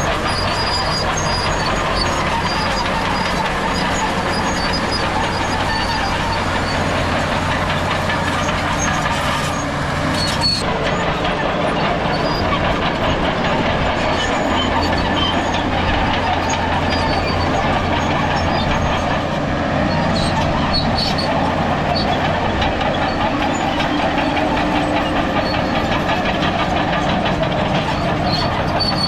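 Crawler bulldozer working: its diesel engine runs steadily under load while the steel tracks clank and squeal, with thin high squeaks coming and going.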